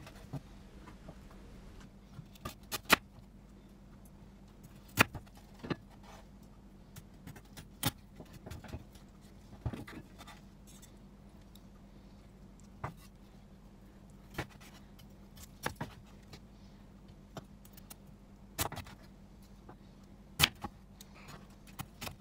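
A chef's knife chopping through Thai crispy pork belly (moo krob) onto a wooden cutting board: sharp, irregular crunches and knocks every second or two as the blade cracks the puffed, crisp crackling. The crunch shows the skin is properly crisp.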